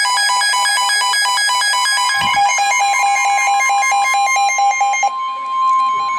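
Weather-radio electronic alert: loud, steady tones switching rapidly back and forth several times a second for about five seconds, then dropping to fainter pulsing near the end. It signals an incoming severe weather warning.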